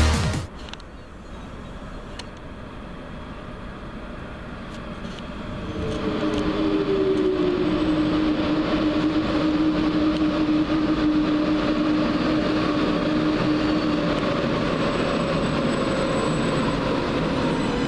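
TGV Duplex double-deck high-speed train approaching and pulling in along the platform, its rumble growing louder from about five seconds in. A whine falls in pitch, then holds steady for several seconds as the train comes slowly closer.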